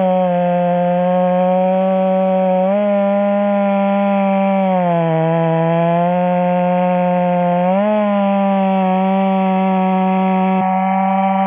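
Big-bore Stihl two-stroke chainsaw running at full throttle while cutting through a large log. The engine note sags as the chain loads up about five seconds in, then climbs back, with brief rises in pitch around three and eight seconds.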